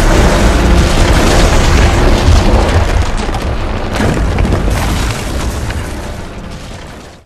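Cinematic explosion sound effect: a loud, deep boom and rumble as a structure is blown apart, with a sharp crack about four seconds in, then the rumble fades away over the last two seconds.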